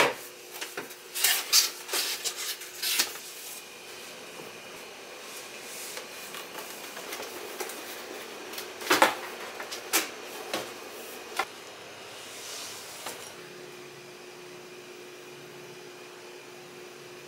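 White paperboard cake boxes being folded and handled by gloved hands: sharp taps and rustles in a burst over the first three seconds and again about nine to eleven seconds in, over a steady low hum.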